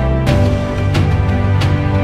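Background music with a steady beat: sustained chords under sharp percussive hits roughly every two-thirds of a second, the chord changing just after the start.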